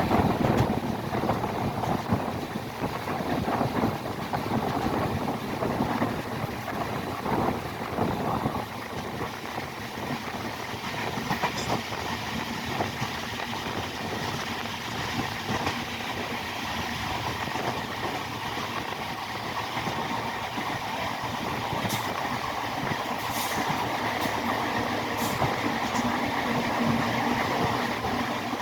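Indian Railways train running along the track: a steady rumble of wheels on rails, with irregular knocks through the first several seconds.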